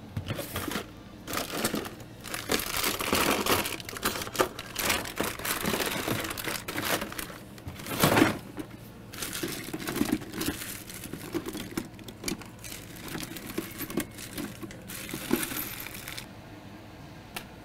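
Rummaging through stored parts by hand: irregular crinkling and rustling with small knocks, dying down near the end.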